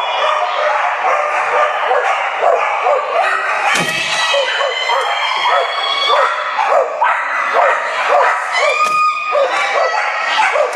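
Many flyball dogs barking and yipping over and over, several barks a second, with people's voices underneath. A single sharp bang sounds about four seconds in.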